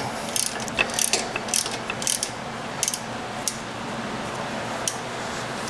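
Hand ratchet with a T40 Torx bit clicking in short, irregular runs as it works the bolt holding the motorcycle's rear brake arm.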